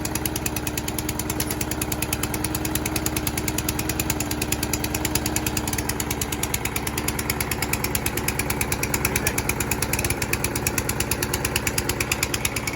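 Small four-stroke petrol lawn mower engine running with its tinware off, firing in a fast, even pulse. The owner takes it that bad old fuel was getting through as it began to run.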